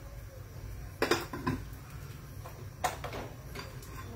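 A kitchen utensil clinking and knocking against cookware several times, in small clusters about a second in and again near three seconds, over a steady low hum.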